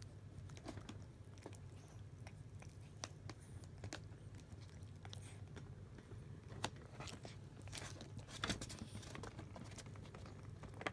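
Cats biting and chewing thin, fibrous strands of a shreddable CIAO stick treat: irregular small wet clicks, coming thicker about seven to nine seconds in.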